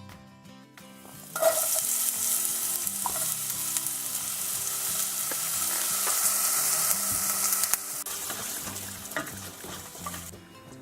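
Food frying in a hot pan: a loud sizzle starts suddenly about a second and a half in as food hits the hot fat, runs on steadily, drops a little near the end and cuts off just before it ends. Background music plays underneath.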